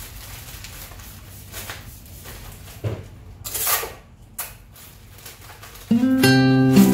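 A florist handling a paper-wrapped bouquet and items on the work counter: soft rustling, a knock about three seconds in, then a brief, louder rasp of paper or wrap. Guitar music comes in near the end.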